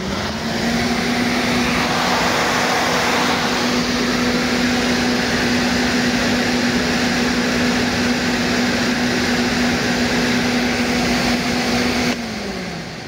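Two-speed Ford Taurus 3.8 electric radiator fan running on its high speed with its airflow blocked by the bench top, drawing about 33 amps: a loud, steady rush of air over a steady hum. About twelve seconds in it is switched off, and the hum falls in pitch as the fan spins down.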